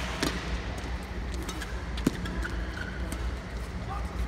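Badminton rally: rackets hitting the shuttlecock, with a sharp smack just after the start and a duller knock about two seconds in, over a steady low hum of the hall.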